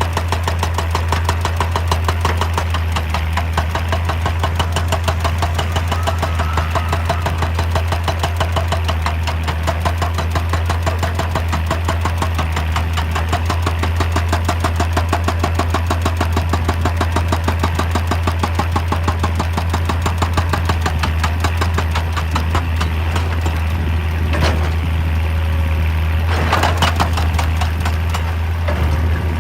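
Hydraulic excavator's diesel engine running steadily at work, with a deep hum and a fast, even pulse. A few louder clanks come near the end.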